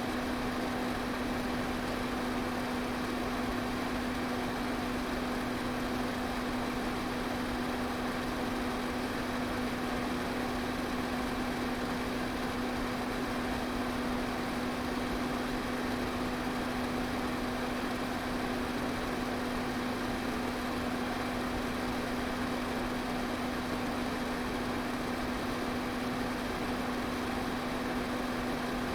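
Electric pedestal fan running steadily: an even rush of air with a constant motor hum.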